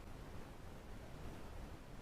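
Faint steady hiss of room tone, with no distinct clicks or other events.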